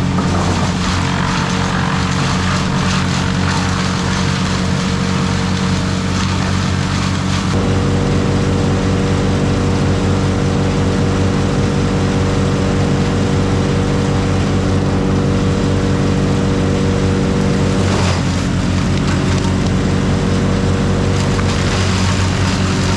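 A large engine running steadily at high revs, a constant drone whose tone shifts slightly about seven and a half seconds in and again around eighteen seconds in.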